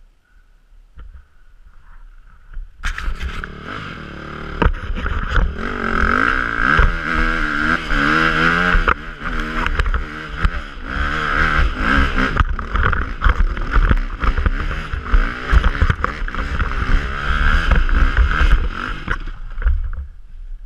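Enduro dirt bike engine revving hard under load on a steep climb over leaf-covered forest ground, its pitch rising and falling with the throttle, with sharp knocks from the bike. The engine comes in loudly about three seconds in and drops away near the end.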